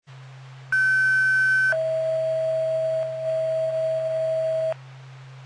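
Fire dispatch two-tone alert page over a radio scanner: a high steady tone for about a second, then a lower tone held for about three seconds, which alerts the fire companies ahead of a dispatch. A steady low hum runs underneath.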